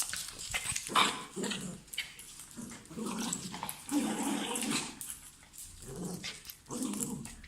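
A worked-up dog making agitated vocal noises in irregular bursts with short pauses between them.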